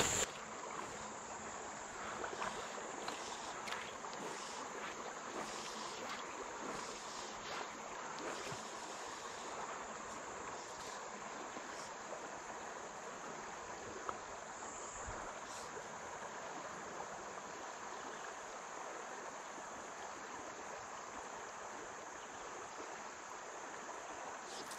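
Steady rush of the Little Red River's current over shallow riffles. A faint, steady high-pitched hiss sits above it.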